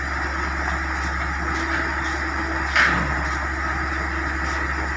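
Heavy construction vehicle's diesel engine running steadily, with one short sharp knock a little past the middle.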